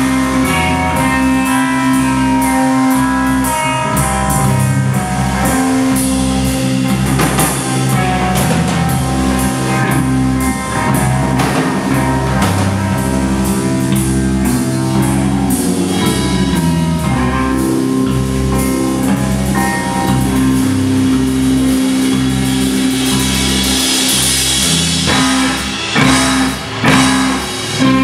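Live instrumental rock band playing: two electric bass guitars, electric guitar, synthesizer keyboards and drum kit, with a steady driving beat and one note held underneath. The band cuts out for a few short breaks near the end.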